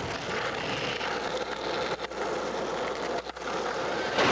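Steady hiss of a blank VHS videotape, with two brief dropouts, about two seconds in and again about a second later.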